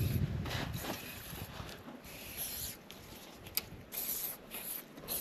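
A low rumble dies away in the first second or two. Then come scattered rubbing and knocking noises of things being handled on an aluminium boat's deck, with one sharp click about three and a half seconds in.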